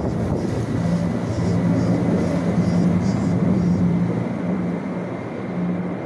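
Aircraft flying overhead: a steady low engine drone over a rushing noise, the hum settling in about a second in.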